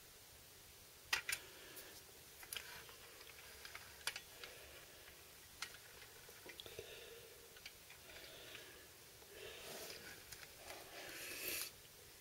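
Small clicks and taps of a toy Euclid R32 dump truck being handled and set down on a hard floor, the two loudest about a second in. Near the end comes a longer scraping sound, growing louder, as the truck is pushed along the floor.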